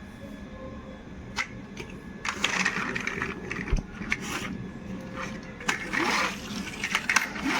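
Toy vehicles clattering and rattling as they are handled, with a few sharp clicks, over a steady hum; the rattling starts about two seconds in.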